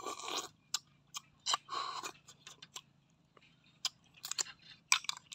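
Mouth sounds of eating snails in curry: several short, wet slurping sucks at the shell opening as the meat is drawn out, with sharp lip-smacking clicks and chewing between them.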